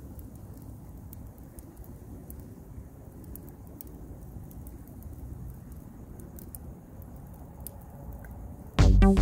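Wood fire burning in a fire-brick rocket stove: a low, steady rumble with faint scattered crackles. Electronic music with a heavy beat cuts in suddenly near the end.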